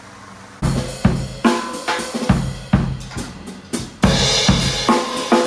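Drum kit played in a recording session. After a short pause come loose, uneven hits of kick, snare and toms, and a cymbal crash rings out about four seconds in.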